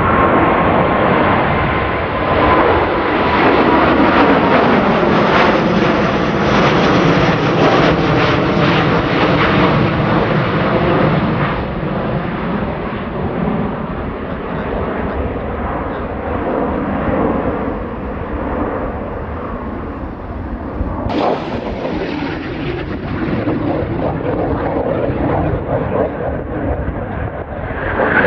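Airbus A330-900 airliner's jet engines at takeoff power as it climbs away, a steady loud rush with a slowly falling whine. About two-thirds of the way in it cuts abruptly to a Northrop T-38C Talon's jet engines, somewhat quieter at first and growing louder near the end.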